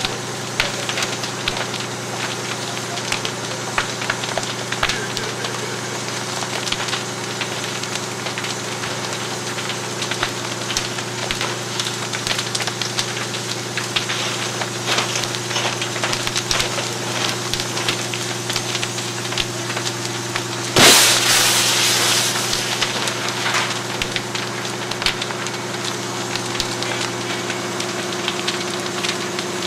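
A burning wood-frame garage crackling and popping over the steady hum of a running engine, most likely a fire apparatus. About two-thirds of the way through comes a sudden loud rushing burst that fades over a couple of seconds.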